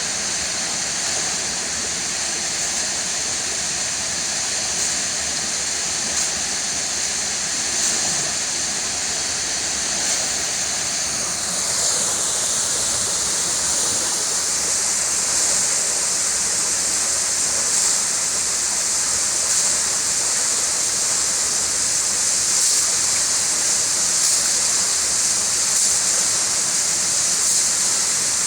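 Steady rush of water flowing in a water-treatment clarifier/filter tank, growing a little louder and brighter about a third of the way in.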